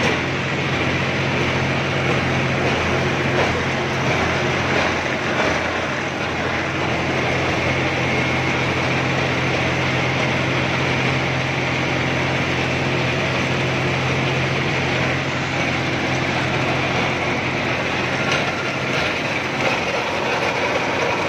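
John Deere 5075 4WD tractor's diesel engine running steadily with a constant low hum while the tractor moves.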